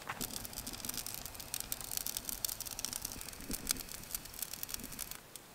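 A pizza baking in a propane-fired pizza oven, crackling and sizzling with dense, irregular ticks over a faint steady hiss. It stops suddenly near the end.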